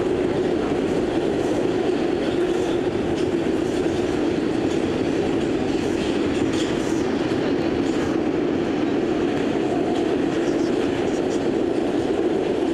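R142 subway car running through a tunnel, heard from inside the car: steady wheel-on-rail running noise with faint clicks from the track.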